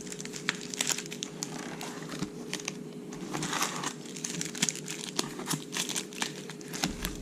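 Wrapped trading-card packs crinkling and rustling as they are handled and taken out of their box, with many irregular small crackles.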